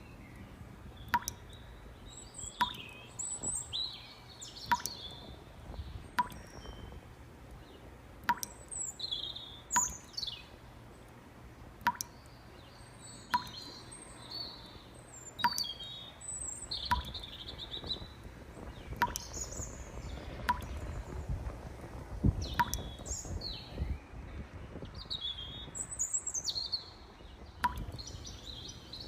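Birds chirping and singing in short, scattered high calls, with a sharp click repeating about once a second.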